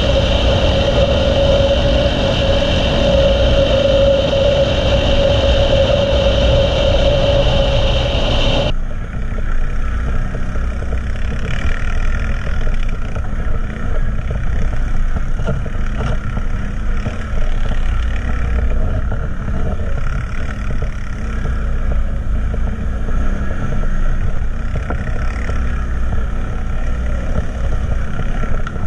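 ATV engine running under way, heard from a helmet-mounted camera on the rider. For the first nine seconds it holds a steady drone with a clear high whine. It then changes abruptly to a rougher, uneven engine sound with more low rumble.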